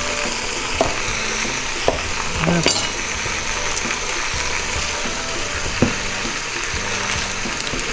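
Marinated pork chunks searing in a smoking-hot pot, a steady sizzle as the meat caramelizes, with a few short clicks now and then.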